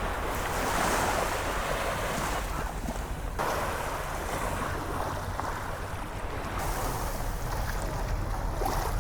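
Small sea waves washing onto a sandy beach, with wind rumbling on the microphone. The background changes abruptly about three seconds in, like a cut between two shots.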